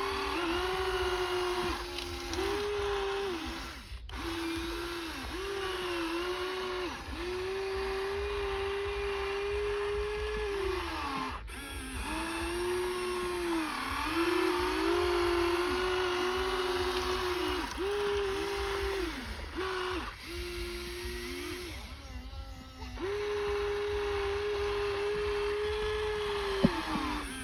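Small electric motors of toy RC construction machines whining, switching on and off again and again, the pitch gliding up at each start and down at each stop.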